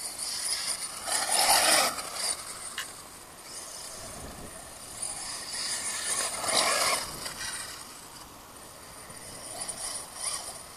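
Team Associated RC8Te, an electric 1/8-scale RC truggy, driving on grass: its motor and geared drivetrain whine in swells as it speeds up, together with tyre noise. The swells are loudest about a second and a half in and again around six to seven seconds, with a smaller one near the end.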